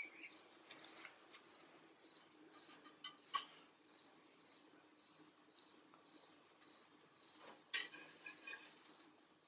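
A cricket chirping steadily, short high chirps at about two a second, with a few light clinks of a serving spatula on plates.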